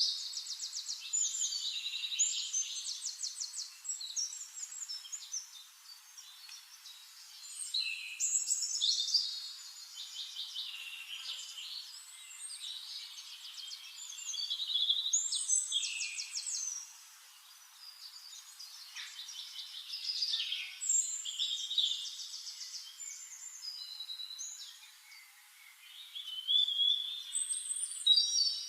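A songbird singing in bursts of rapid trills and sliding high chirps, a new phrase every few seconds.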